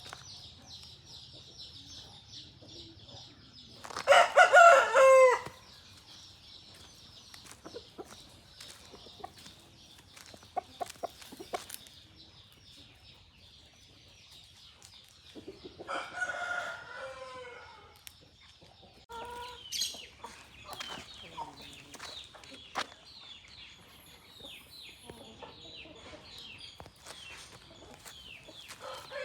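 Rooster crowing, loudest about four seconds in, with further crows and calls around the middle and again at the end, and chickens clucking in between. A steady high-pitched chirring runs underneath.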